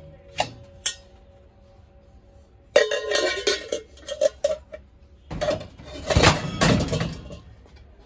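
Brass pots and vessels knocking and clinking against each other as they are handled. Two light taps come first. From about three seconds in there is a clatter with a brief metallic ring, then a louder, longer rattle and scrape of metal on metal.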